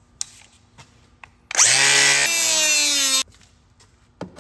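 Small power cutting tool spinning up with a rising whine and cutting through the car's thin floor-pan sheet metal around a rust spot. It runs for under two seconds, shifting pitch partway through, then stops abruptly. A few light clicks and taps come before and after it.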